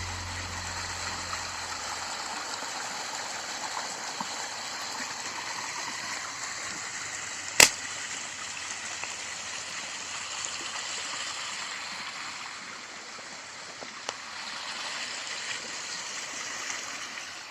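Stream water running steadily, with one sharp click about seven and a half seconds in.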